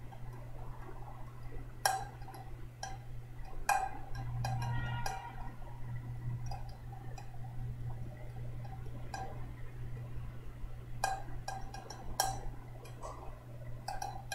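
Scattered light clicks and clinks at a desk, about eight in all, over a steady low hum, with a brief squeaky pitched sound about five seconds in.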